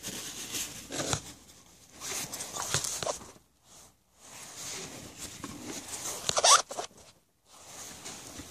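Shop towel rubbing and wiping a coolant hose fitting on the engine: an uneven scratchy rustle in short strokes, with a brief rising squeak about six and a half seconds in. The sound drops out abruptly twice.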